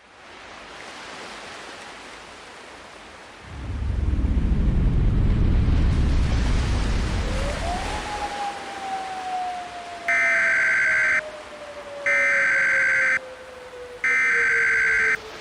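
Static hiss builds, then a deep rumble swells about three and a half seconds in while a single tone glides up and then slowly falls. Near the end come three one-second bursts of Emergency Alert System SAME header tones, the buzzing digital data signal that opens a real EAS alert, about a second apart.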